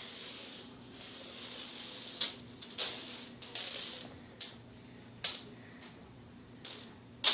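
A series of sharp, irregular clicks and rustles, about seven over five seconds, the last one the loudest, over a faint steady hum.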